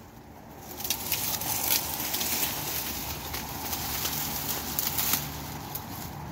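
Dry leaf litter crackling and rustling as it is trodden on, with steady crunching from about a second in.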